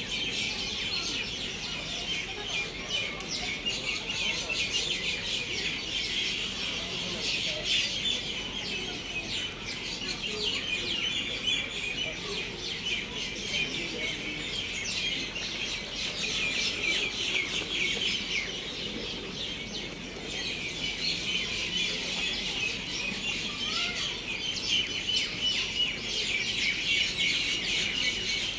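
Many small birds chirping continuously, a dense overlapping chorus of short, high chirps.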